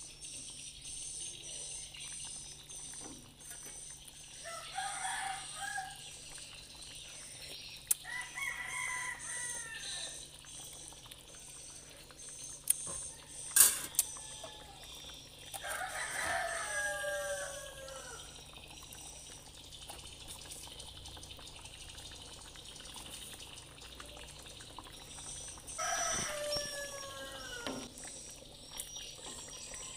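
A rooster crowing about four times in the background, each crow a call of a second or two that falls in pitch. Under it, faint bubbling and scraping from a wooden spatula stirring cassava leaves simmering in coconut milk in a wok, with two sharp knocks.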